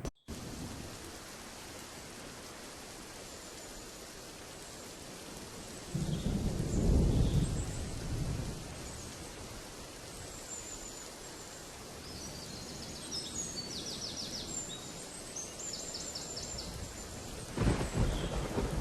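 Outdoor ambience: a steady hiss with two spells of low rumbling, one about six seconds in and one near the end. Small birds chirp in short high trills through the second half.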